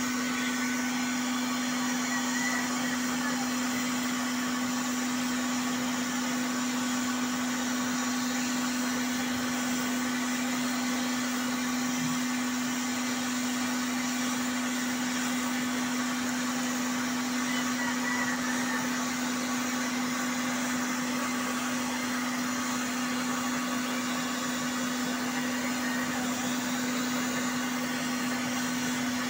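Small electric blower of a double-burner waste-oil stove running steadily, feeding air to the burner: a constant low hum over an even rush of air.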